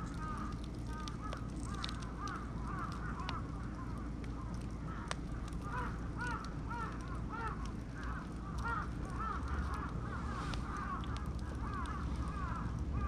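Wood fire burning with scattered sharp crackles and pops. A constant chatter of short, squeaky, rise-and-fall chirps several times a second sits over it.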